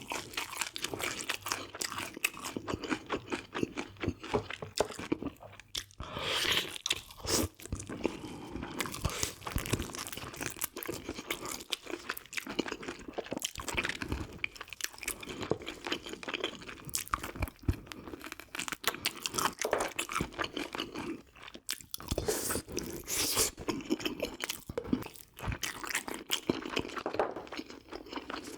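A person chewing and biting food close to the microphone, with many irregular short crunches and clicks: the mouth sounds of eating spicy braised pork ribs with bean sprouts.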